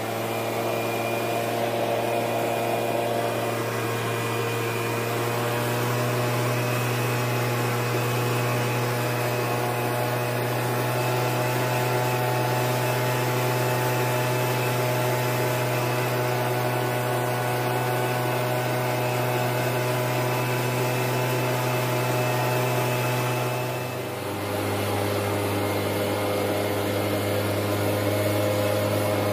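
Leaf blower running steadily, blowing debris off the strawberry rows. About three-quarters of the way through it briefly drops, then goes on at a slightly lower pitch.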